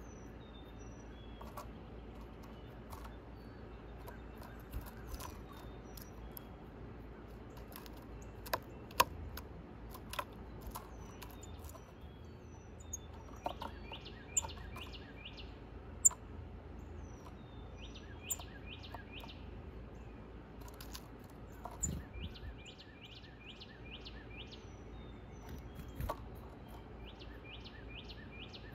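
Small songbirds chirping and calling, with a rapid trill of repeated descending notes heard four times, over a steady outdoor hiss. A few sharp taps stand out as the loudest sounds.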